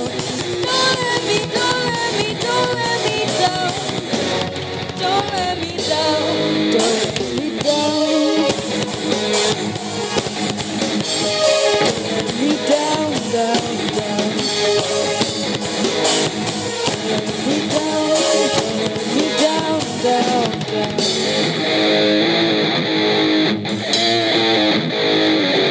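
A woman singing a pop song backed by a band with drum kit, bass guitar and guitar.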